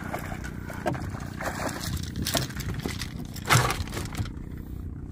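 A hooked king mackerel splashing at the surface and being swung into a wooden boat, with several sharp knocks and scrapes as the fish and gear hit the hull, the loudest about three and a half seconds in. A steady low rumble runs underneath.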